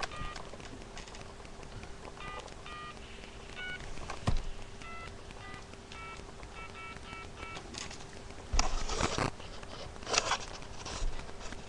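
Touch-tone phone keypad dialing: around ten short two-note beeps as a number is keyed in, unevenly spaced, some in quick runs. Near the end come a couple of louder rustling bursts.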